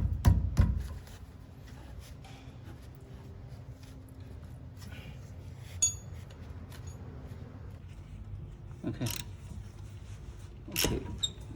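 A few sharp metallic clicks in the first second from a ratchet wrench turning a brake caliper bolt. After that it is mostly quiet, with a single light clink of tools about halfway through and another brief burst of clicks near the end.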